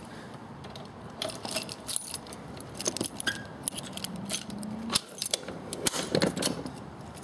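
Keys jangling on a key ring as the ignition key is turned in the motorcycle's key switch, a string of small irregular metallic clicks and rattles.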